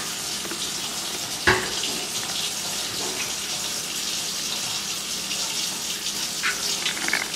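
Water tap running into a sink, a steady rush of water, with a single knock about a second and a half in.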